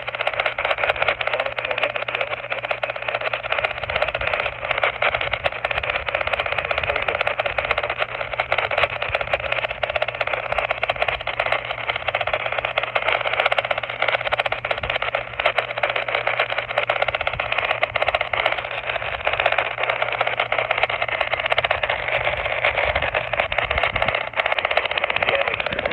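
Steady hiss of radio static with fine crackle, thin and narrow like sound from a small radio speaker. A low hum runs under it and stops near the end.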